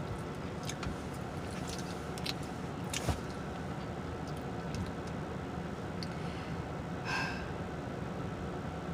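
Close-up chewing of a donut, with scattered wet mouth clicks and smacks and a short breath about seven seconds in, over the steady low hum of a car interior.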